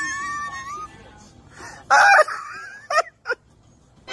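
A woman giggling in high, squealing sounds: a drawn-out squeal at the start, a louder burst about two seconds in, and two short bursts around three seconds.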